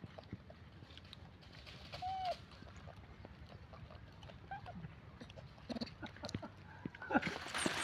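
Faint, short animal calls, a few seconds apart, then a burst of noise with sharp clicks near the end.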